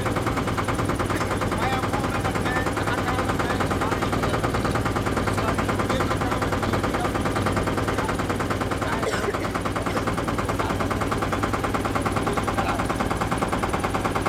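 Boat engine running steadily, a fast even chugging that does not change.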